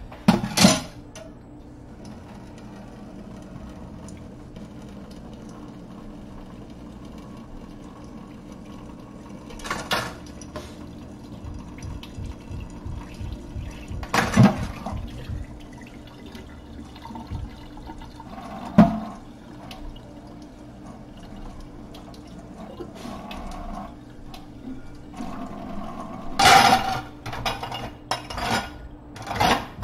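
Tap water running into a stainless steel kitchen sink while a plate is scraped and scrubbed. A few sharp knocks of dishes come through the water, and near the end there is a short run of clattering dishes.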